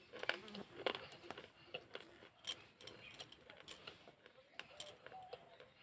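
Pieces of broken fired-clay pot being bitten and chewed close to the microphone: a quick, irregular run of sharp, crisp crunches and gritty cracks.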